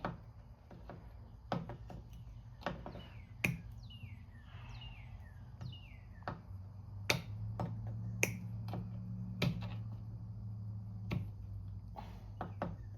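Sharp, irregular clicks and taps of pliers working at an old rope knot in a chainsaw's plastic recoil starter pulley, prying it loose.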